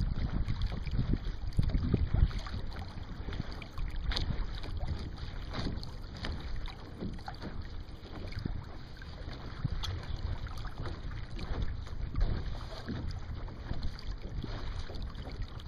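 Water splashing and rushing along the hull of a Sunfish sailboat under way, with wind noise on the microphone. The splashing is loudest in the first couple of seconds, then settles to a steady, quieter wash.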